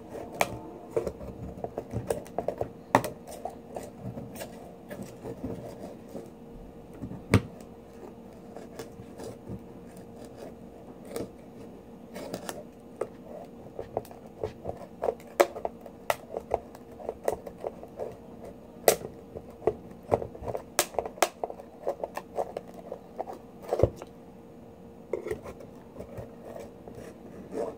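Serrated steel knife blade scraping and clicking irregularly against a large pearl oyster's shell as it is worked in between the valves to cut the adductor muscle (the "tendon"), which is hard to cut.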